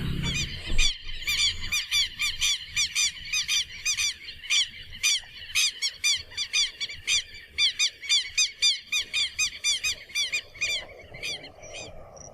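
A bird calling in a long, rapid series of short, arching chirps, about three a second, that fade out near the end. A cow's low moo trails off in the first second.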